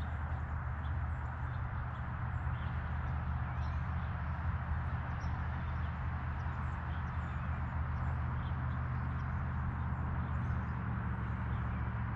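A boat motor running with a steady low hum, and faint irregular ticks and splashes over it.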